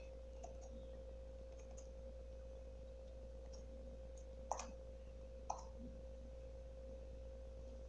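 Faint, scattered sticky clicks of fluffy slime being pulled and peeled off the hands, the loudest about four and a half seconds in, over a steady faint hum.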